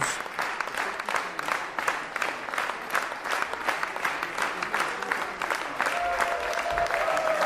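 A congregation applauding with many hands clapping. A held musical note comes in about six seconds in.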